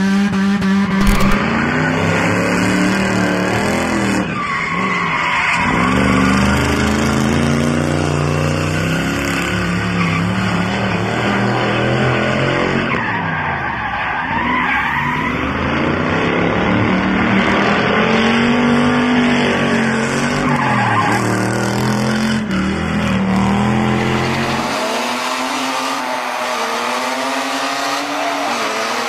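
Drift cars' engines revving up and down hard while their tyres skid and squeal, from several separate recordings spliced one after another; the sound changes sharply at each cut, and in the last few seconds the low engine rumble drops away, leaving a thinner recording.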